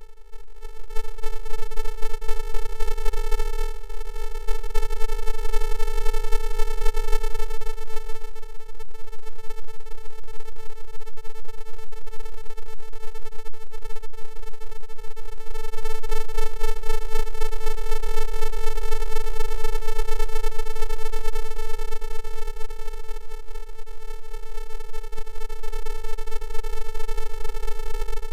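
A steady electronic buzzing tone held on one pitch, rich in overtones, with a low hum beneath it.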